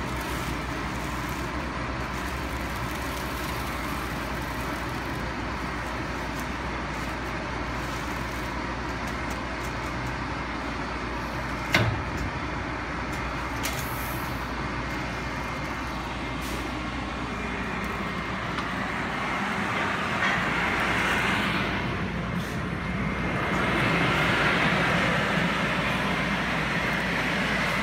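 Steady whirring of a shrink-wrap machine's heat tunnel blower. It grows louder and hissier in the last third as the film-wrapped basket goes into the tunnel. A single sharp knock comes about twelve seconds in.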